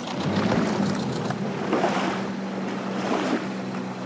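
Small outboard motor on an aluminium dinghy running at low speed, a steady low hum, with water and wind noise around it.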